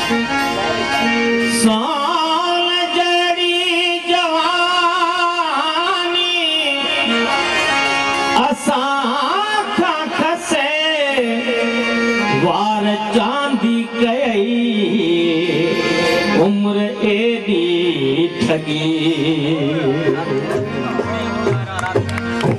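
Sindhi folk song: a wavering, heavily ornamented melody line over a steady held drone, with a few percussion strokes here and there.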